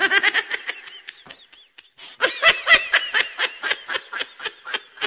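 High-pitched giggling laughter, a rapid run of short bursts with a brief lull about a second and a half in.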